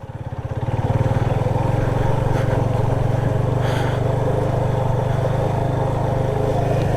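Motorcycle engine revved up over about the first second and then held at steady high revs, as the bike is stuck in mud.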